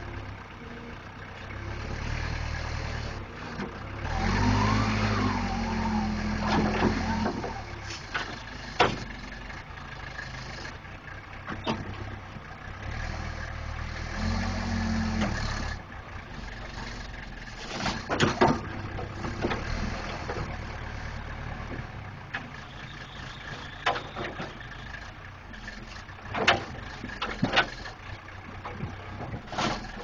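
Case 480C backhoe's diesel engine running under heavy load as its hydraulics lift a bulldozer blade, revving up hard in two stretches, a few seconds in and again about halfway. Several sharp knocks are heard between.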